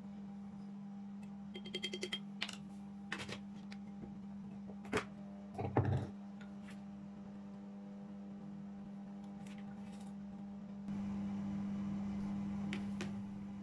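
A few light clicks and knocks over a steady low hum. The clicks come in a quick run early on, and the two loudest knocks fall about five and six seconds in. Near the end the hum and hiss grow louder.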